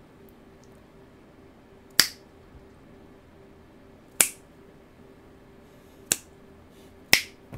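Four sharp hand snaps, spaced about two seconds apart, made to trigger a PC case's sound-reactive RGB lighting, over a faint steady hum.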